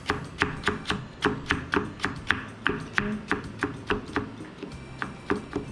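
Chef's knife slicing fresh ginger into thin strips, each stroke knocking through to a wooden cutting board in a steady rhythm of about three chops a second.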